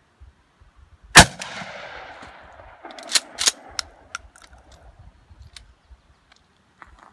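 A pump-action shotgun fires a single shot about a second in, the report echoing and fading over a few seconds. About two seconds later the slide is racked with a few sharp metallic clacks, followed by lighter clicks of handling.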